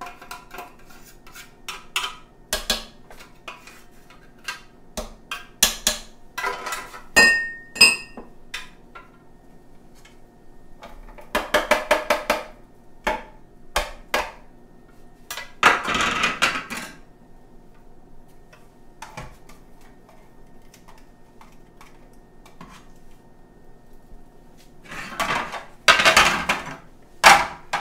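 Kitchen clatter from a plastic vegetable dicer being knocked against the slow cooker to empty out diced sweet peppers, with sharp knocks and clinks of utensils and dishes. One clink rings briefly about seven seconds in. There are short scraping rushes near the middle and again near the end.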